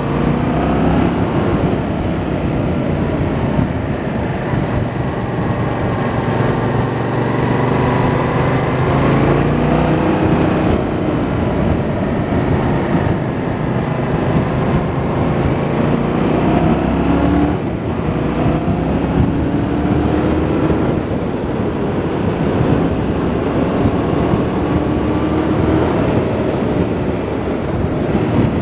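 Yamaha MT-07's 689 cc parallel-twin engine running under load as the bike rides a twisting road, its revs climbing and dropping again and again through the bends. Wind rushes over the microphone throughout.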